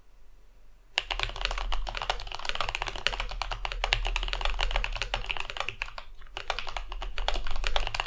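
A modded Drop Tokyo60 mechanical keyboard being typed on quickly, with Holy Panda X switches, DCX keycaps, switch pads, case foam and tape mod. A dense run of keystrokes starts about a second in, with a brief pause about two-thirds through.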